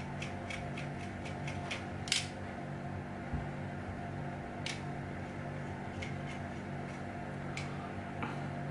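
Small knife scraping and clicking on a headphone jack as burnt coating is cleaned off its terminals: a run of light clicks at first, then a few single sharper scrapes a couple of seconds apart, over a steady low hum.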